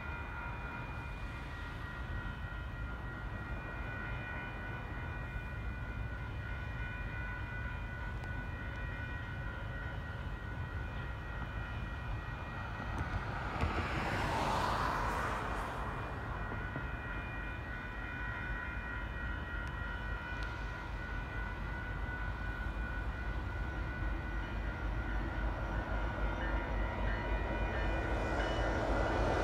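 Railroad grade-crossing warning bell ringing steadily, with a road vehicle passing close by about 14 seconds in. Near the end the low rumble of the approaching diesel locomotives of a freight train grows louder.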